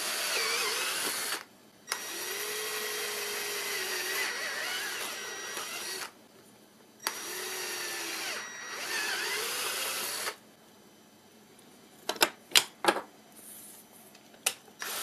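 Handheld power drill running in three long bursts, its bit clearing out the holes of a black 3D-printed plastic part, the motor's pitch wavering as the bit bites. A few sharp knocks follow about twelve seconds in.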